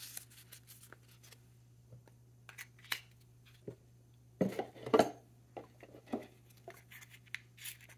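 A heavy glass ink bottle handled against its cardboard box: scattered light taps and scrapes of glass and card, with a louder clunk and scrape about four and a half to five seconds in.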